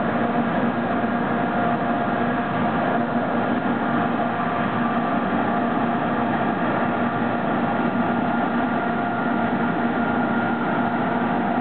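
Large building exhaust fan running with a steady, loud hum of several held tones over the rush of moving air. It is really loud, which the person recording takes to be far beyond the noise code.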